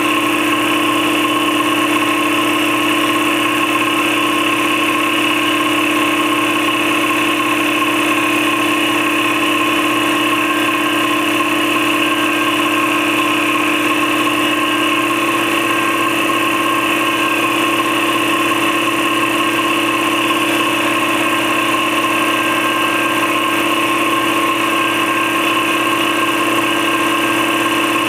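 Campbell Hausfeld 60-gallon twin-piston air compressor with a 3.2 hp 240 V electric motor, running steadily under load as it pumps up its tank toward the shutoff pressure. A steady hum with a high whine over it.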